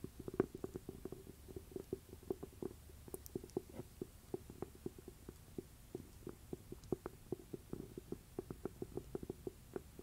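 Fingers tapping on an old cloth-covered book held right against a binaural microphone: quick, soft, irregular taps, several a second.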